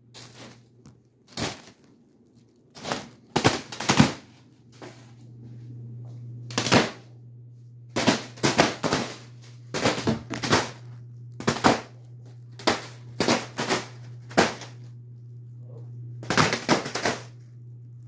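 Spinning ceiling fan blades repeatedly smacking a foil (Mylar) birthday balloon: sharp, crinkly slaps at irregular intervals, often several in quick succession, over a steady low hum.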